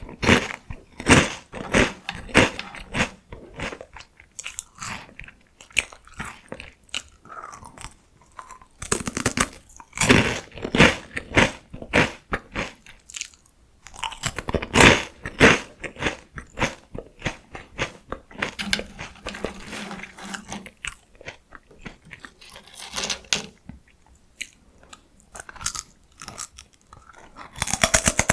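Close-miked crunching and chewing of crisp salty potato sticks: bites snapping the sticks, then rapid, irregular crunches as they are chewed, louder in clusters with each new mouthful.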